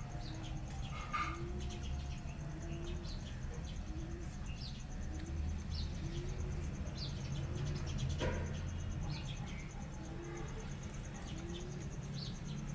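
Small birds chirping in the background: short, high, falling chirps about once a second, over a steady low hum.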